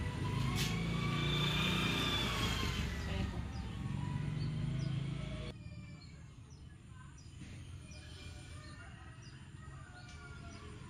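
A motor vehicle engine runs over a low rumble, its pitch rising and then falling. About halfway through it cuts off suddenly, and small birds chirp in short repeated calls over a quiet outdoor background.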